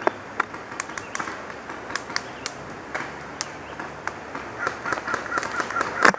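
Sporadic airsoft gun shots, sharp irregular cracks scattered through the exchange of fire, with distant shouting rising in the last couple of seconds. A fast burst of shots starts right at the end.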